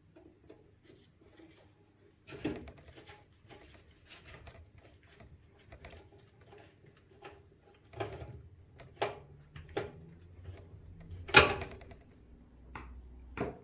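Scattered clicks, taps and knocks of hardware and a screwdriver being handled against a computer case, while the cooler's radiator is fastened in. One sharper knock about eleven seconds in is the loudest.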